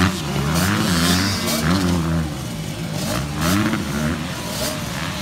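Several motocross dirt bike engines revving up and dropping off again and again, overlapping, loudest right at the start.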